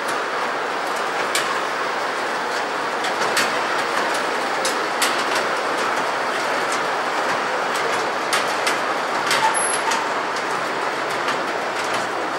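Large decorative toy train running along its elevated track: a steady rumble with scattered clicks of the wheels.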